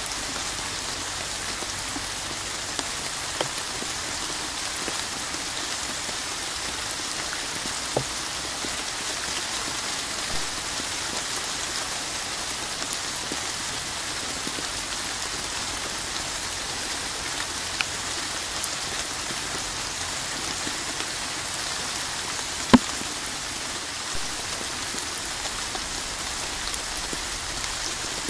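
Steady rain falling, an even hiss with scattered sharper drop taps; one tap much louder than the rest comes late on.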